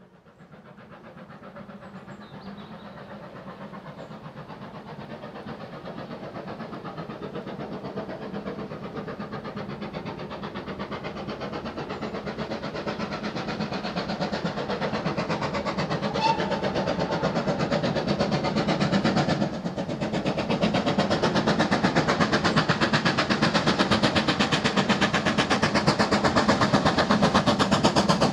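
GWR Manor Class 4-6-0 steam locomotive No. 7812 'Erlestoke Manor' hauling a train, its rapid, even exhaust beats growing steadily louder as it approaches.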